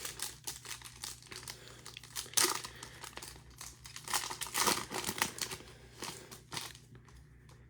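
A football trading card pack wrapper being torn open and crinkled by hand: irregular crackling rustles, loudest about two and a half seconds in and again around four to five seconds in.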